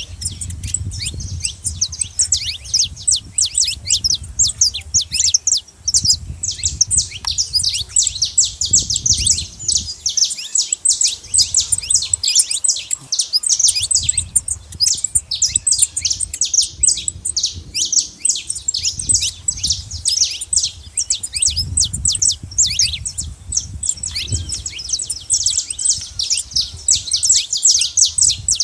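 A flock of saffron finches chirping continuously, many short high calls overlapping in a dense chatter, over an intermittent low rumble.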